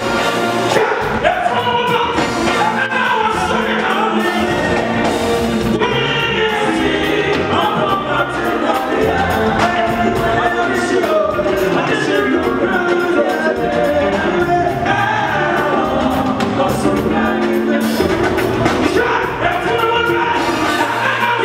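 Live gospel music: male lead vocals over a band of congas, bass guitar and drum kit keeping a steady beat.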